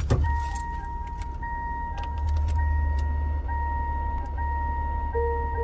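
Car interior sounds: a low engine rumble under a steady car warning chime tone with a soft repeating pulse, and a few clicks near the start. A second, lower pulsing chime tone joins about five seconds in.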